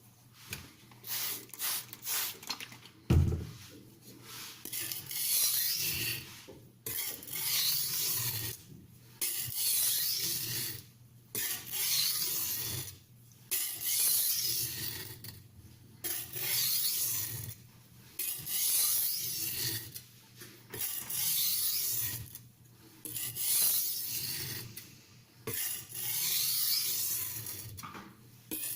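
Steel knife blade scraping back and forth on a wet silicon carbide sharpening stone: a steady rhythm of rasping strokes, each about a second and a half long, roughly one every two seconds. About three seconds in there is a single short knock.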